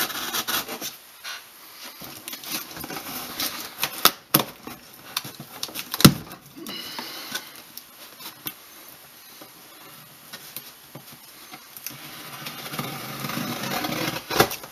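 Cardboard shipping box being worked open at a taped seam by hand: scraping and rustling of cardboard and tape, with scattered sharp clicks and knocks, the loudest about six seconds in. A longer scraping sound builds near the end.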